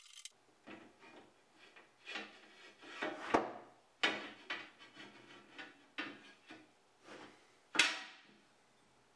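Aluminium base plate scraping and knocking against an aluminium extrusion frame as it is forced into a tight fit: a run of short scrapes and knocks, the sharpest about three and a half seconds and near eight seconds in.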